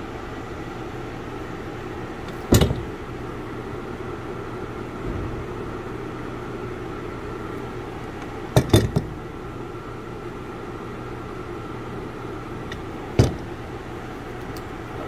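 Pulley bearing of a Honda Pilot's automatic belt tensioner spun by hand, a steady mechanical running sound with a constant hum, the sign of a noisy, worn tensioner bearing. Sharp knocks as the tensioner is handled: once about two and a half seconds in, twice in quick succession near the middle, and once more later.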